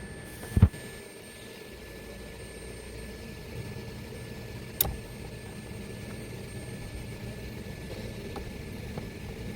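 A 17 mm steering-wheel nut being loosened with a socket on a breaker bar: one sharp thump about half a second in as it breaks loose, then a single click near the middle, over a steady low background hum.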